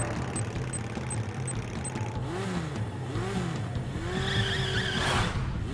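Cartoon vehicle engine sound effect: a steady engine hum with a few rising-and-falling revs. Quick high beeps, about three a second, sound over the first two seconds, and a whoosh comes near the end.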